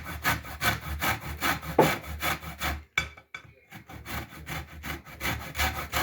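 Lemon peel being grated on a hand grater: quick scraping strokes, about four a second, with a short break about three seconds in.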